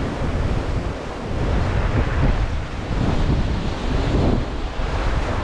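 Ocean swell surging and breaking white against a rock ledge, a continuous rushing wash that swells and eases, with wind buffeting the microphone in a deep rumble.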